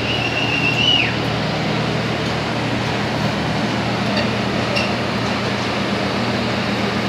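Steady mechanical drone with a low hum from the livestock ship's machinery and ventilation. A shrill held whistle drops away and stops about a second in.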